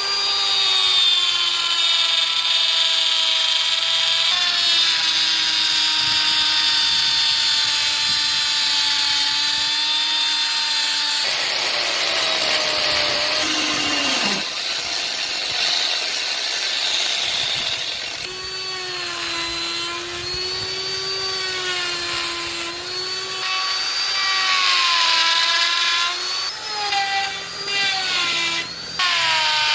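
A handheld power tool cutting into wood: a continuous motor whine whose pitch wavers and sags as the bit or disc bites under load, with a dip about fourteen seconds in, and broken, shorter passes near the end.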